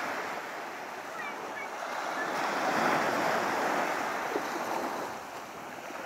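Sea waves breaking and washing up a beach: a rushing wash that swells to a peak about halfway through and then falls away.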